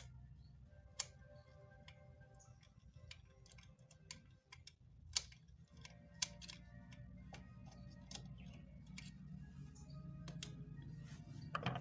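Scattered small metal clicks and ticks from a screw being unscrewed and the motor housing of a sewing machine being handled, the sharpest about five seconds in.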